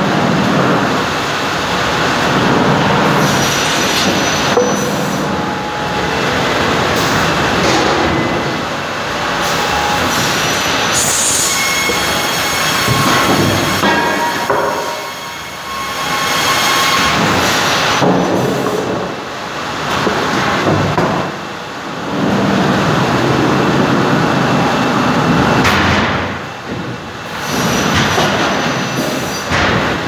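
Cursal TROA Ø550 roller-fed optimizing cross-cut saw line running: wooden boards rumble and clatter along the steel roller conveyors and through the saw as it cuts, with a high whine about halfway through and the noise dropping briefly several times.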